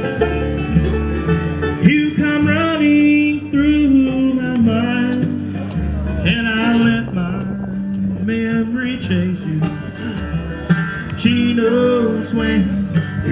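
Live bluegrass band playing an instrumental break, with quick melodic runs over acoustic guitar, mandolin, five-string banjo and a plucked upright bass line.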